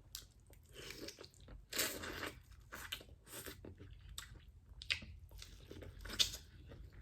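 A person eating from a seafood boil: irregular, close-up chewing and biting with crunchy snaps. The loudest bites come about two seconds in and near six seconds.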